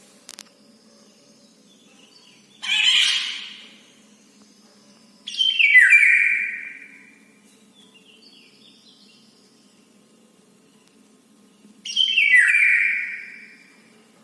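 A bird calling loudly three times, each call about a second and a half long and stepping down in pitch, with fainter calls between them. The uploader takes these calls for the bird asking for food.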